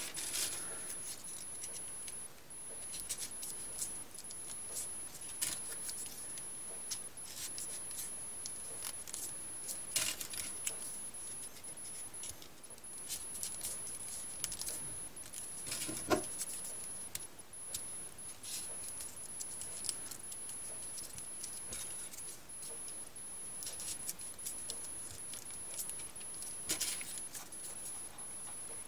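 Folded paper triangle units of a modular (3D) origami model being picked up and pushed into place by hand: light, irregular paper rustles and small clicks, with a sharper click about ten seconds in and again about sixteen seconds in.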